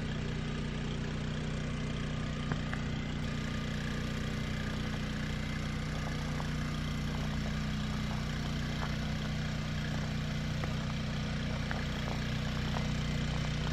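Old-style RV generator running at a steady speed, a constant low hum.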